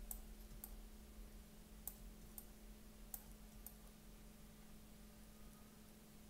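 Faint clicking at a computer: about six sharp clicks, roughly in pairs half a second apart, in the first four seconds, then none. A low steady hum sits underneath.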